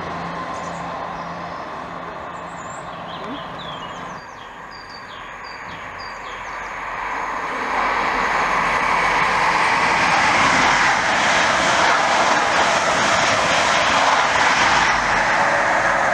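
A passing train's hum fading away, a few bird chirps, then the rising hiss and rumble of an approaching train that grows loud over the second half.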